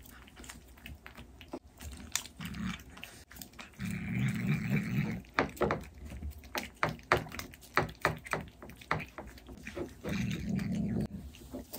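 A black kitten licking a liquid cat treat from a Ciao Churu squeeze tube, making quick wet smacking clicks. It gives a low, growly "mya mya" eating murmur twice, about four seconds in and near the end.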